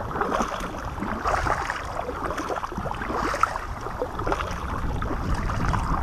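Kayak paddle blades dipping and splashing in repeated strokes, with water sloshing along the hull and wind rumbling on the microphone.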